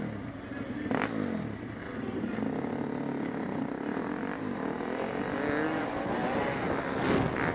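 Sport ATV engine running close up and revving as the quad rides, its pitch rising and falling repeatedly and climbing through a longer rev from about halfway in.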